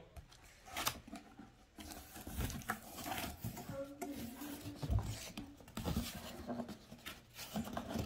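Cardboard box flaps and styrofoam packing being handled as the box is opened: scattered rustles, scrapes and light knocks.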